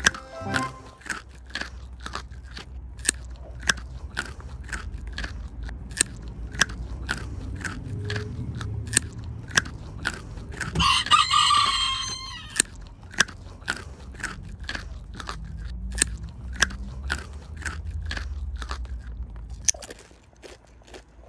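Young lionhead rabbits crunching food pellets: crisp crunches about twice a second, over a low rumble. About eleven seconds in there is one louder call lasting about a second and a half.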